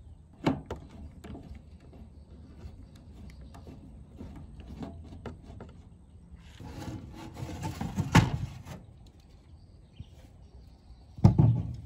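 Handling noise from taking apart an old LG stereo's casing. A few light screwdriver clicks are followed by about two seconds of scraping, with a sharp knock in it, as the rusty sheet-metal cover is worked off. A heavy knock comes near the end.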